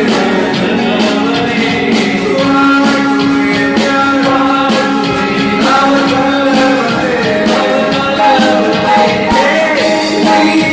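Live church band playing a song: singing voices over keyboard and rhythm accompaniment with a steady beat.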